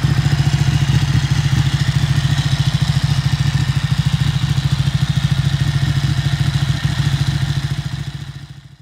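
Ducati 1199 Panigale's Superquadro L-twin engine idling steadily with a rapid, even pulse of firing strokes. The sound fades out near the end.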